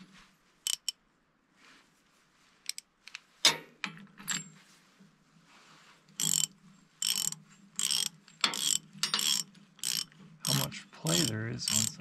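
Hand ratchet wrench clicking as a bolt is run down to snug the clutch onto the engine shaft. A few scattered clicks first, then steady ratcheting strokes, about two a second, from about halfway through.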